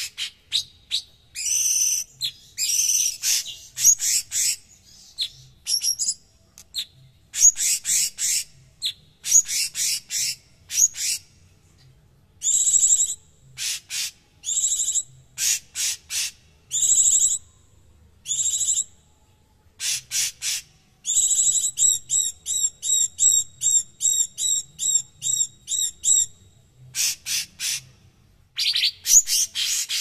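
Blue-winged leafbird (cucak cungkok) singing in harsh, dense bursts of high notes with short pauses between phrases. About twenty seconds in comes a fast run of evenly repeated notes, about three a second, lasting some five seconds.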